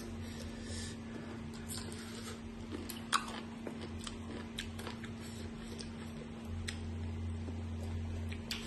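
Crunching and chewing of crisp green mango slices coated in chili seasoning, with scattered sharp crunches, the loudest about three seconds in, over a steady low hum.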